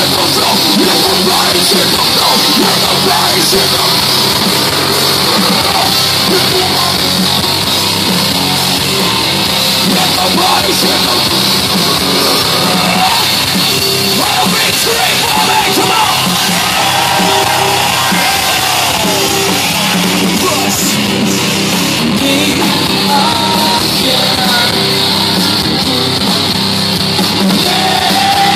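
Live metal band playing loud: distorted electric guitars through Marshall amplifier stacks, bass and a drum kit, with shouted singing at times.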